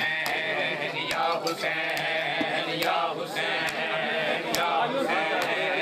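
A crowd of men chanting a Muharram noha together while beating their chests in unison, with a sharp slap a little under once a second keeping time under the voices.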